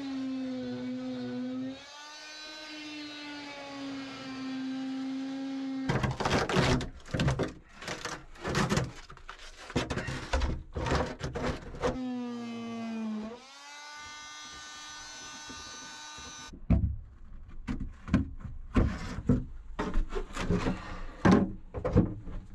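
Corded oscillating multi-tool running with a steady high whine, its blade cutting into the fiberglass-and-balsa cored deck in loud, uneven bursts. About two-thirds of the way through the tool stops, and a run of short knocks and scrapes follows.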